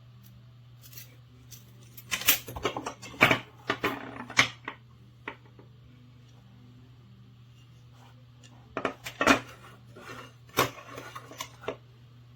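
Metal clicks and clacks of a camera cage and its parts being handled, in two flurries, one about two seconds in and one about nine seconds in, over a faint steady hum.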